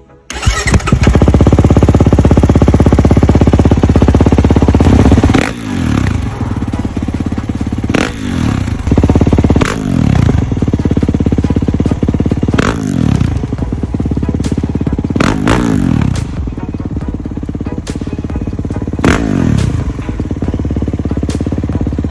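Kawasaki KX450 motocross bike's four-stroke single-cylinder engine running hard. Its pitch falls away sharply about six times as the revs drop.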